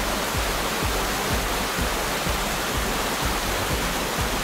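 Small rocky stream rushing and splashing over stones: a steady, even rush of water.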